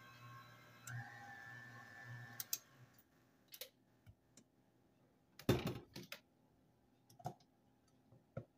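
Tilt-head stand mixer motor running faintly. It shifts pitch about a second in and shuts off about three seconds in. Then come a few clicks and knocks, the loudest a clunk about five and a half seconds in, as the mixer head is released and tilted back.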